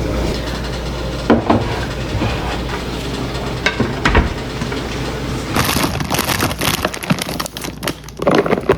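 Groceries being unpacked and sorted: plastic packaging crinkling and rustling with scattered clicks and knocks, the crackling denser in the second half.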